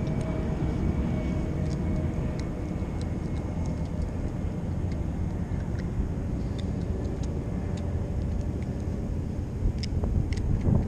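Steady low outdoor rumble, with a few faint, scattered ticks.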